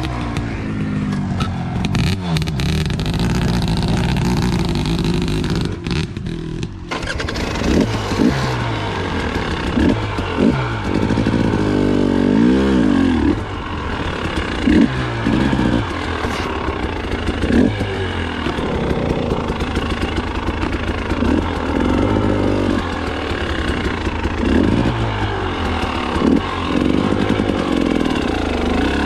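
KTM 300 XC-W TPI fuel-injected two-stroke dirt bike engine revving up and down in short bursts of throttle while crawling up steep, rocky single track.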